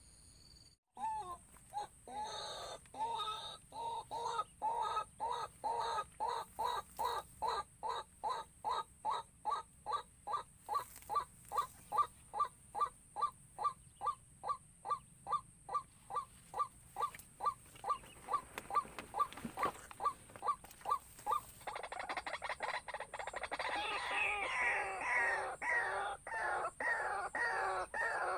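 White-breasted waterhen calls: a long series of evenly repeated notes, about three a second, starting about a second in. Around two-thirds of the way through it turns into denser, overlapping, higher-pitched calling.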